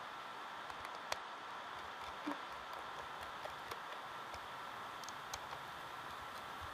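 A few faint, scattered clicks and taps of small parts and tools being handled inside an opened Mac mini, over a steady hiss with a faint high tone.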